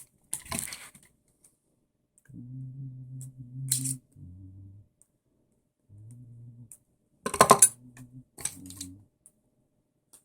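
Small metal parts and tools clinking and clattering while an RC car motor is worked on by hand, loudest in a burst of clatter past the middle. A low hum comes and goes in short stretches between the clinks.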